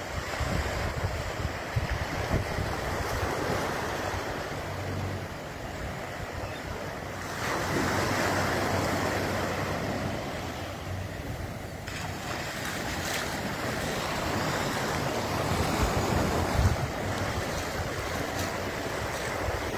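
Small Gulf waves lapping and washing up the flat sand of the beach, with a louder wash about eight seconds in. Wind rumbles on the phone's microphone.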